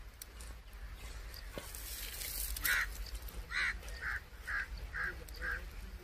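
Red-wattled lapwing calling: a run of about six short, sharp notes, roughly two a second, starting a little before halfway through, the first the loudest. A low steady rumble lies beneath.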